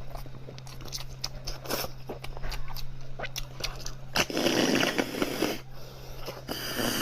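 A person eating meat close to the microphone: wet chewing and biting clicks throughout, with a louder stretch of chewing noise about four seconds in and another near the end.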